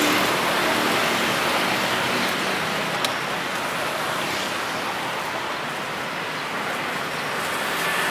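Steady street noise from passing traffic, a dull hiss with no distinct engine, with a single sharp click about three seconds in.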